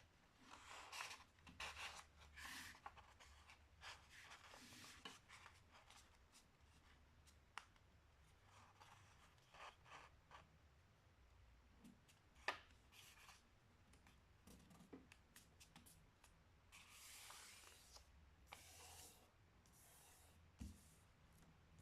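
Faint rustling and creasing of a sheet of printer paper being folded by hand into a paper airplane, in short irregular swipes with a sharp click about halfway through.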